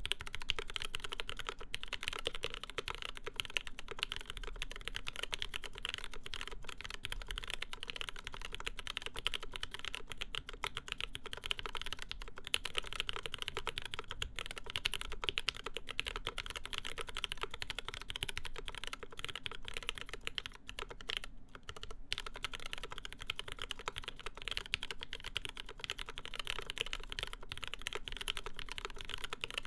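Steady fast typing on a Kyuu mechanical keyboard with lubed linear MX Black switches on Invyr UHMWPE stems, an aluminium plate and GMK keycaps: keystrokes in quick succession, with a short break about two-thirds of the way through.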